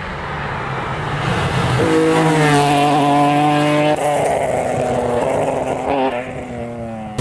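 BMW 1 Series rally car driving flat out past on a stage, its engine note growing and climbing as it approaches, dropping in pitch as it goes by about four seconds in, then fading as it pulls away. The sound cuts off suddenly at the end.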